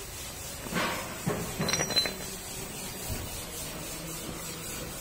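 A few light clinks and taps of hard objects knocking together, bunched between about one and two seconds in, one of them with a short high ring.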